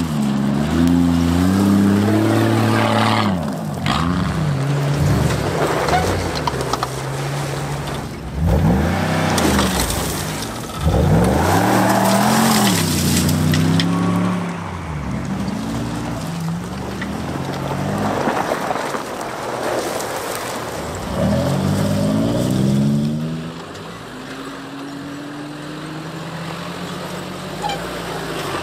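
Off-road 4x4 engines revving, their pitch rising and falling again and again, with sharp bursts of acceleration about 8, 11 and 21 seconds in.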